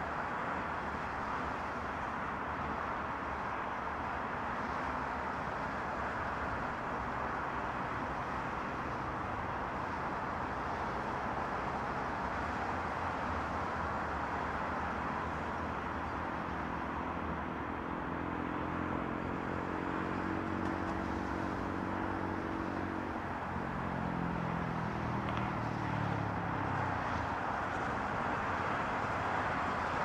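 Steady wash of multi-lane highway traffic, tyre and engine noise blending together. About two-thirds of the way in, one vehicle's engine note stands out and drops in pitch as it passes.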